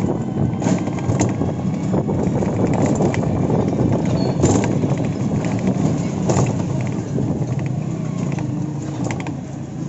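Steady road and street noise heard from inside a moving open-sided rickshaw, with scattered knocks and rattles as it rolls along.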